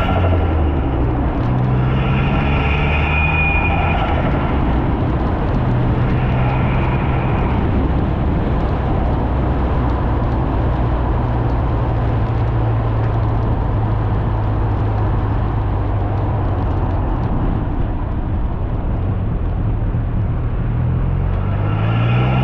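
Ford Fiesta ST180's hybrid-turbocharged 1.6 four-cylinder engine on the road, accelerating in two short pulls with the engine pitch rising, then running at a steady pitch, and pulling again near the end. Turbo flutter can be heard when the throttle is lifted between pulls.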